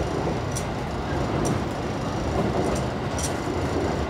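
A train running at speed, heard from inside the carriage as it crosses a steel truss bridge: a steady low rumble of wheels on rail, with a few faint high clicks at uneven intervals.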